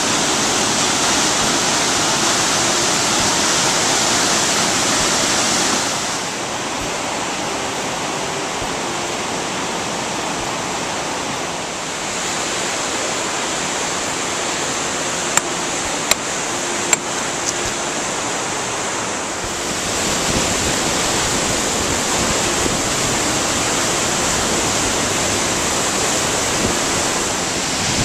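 Steady rush of snowmelt-swollen whitewater tumbling over granite boulders in a mountain river. Its level steps a few times as the sound jumps between spots. About halfway through come a few sharp knocks, from rocks being moved during trail work.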